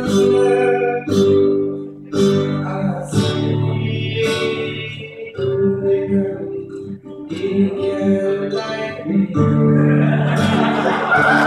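Acoustic guitar strummed in chords about once a second with a man singing, heard through a venue's speakers. Near the end, the noise of an audience swells up over the music.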